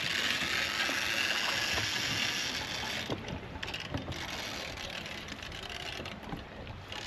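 Steady hiss of wind and moving river water around a small fishing boat, easing about three seconds in, with a few faint knocks.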